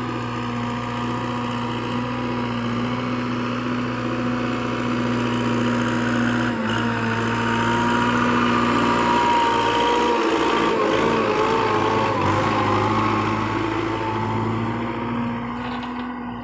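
Belarus 510 tractor's diesel engine running steadily while it pulls a laser land leveler, louder toward the middle as it passes close and easing off near the end.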